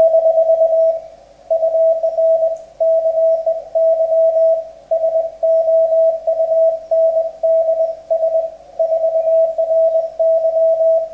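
Morse code (CW) signal on the 40 m amateur band: a single steady tone of about 650 Hz keyed on and off into dots and dashes, with short pauses between characters and words.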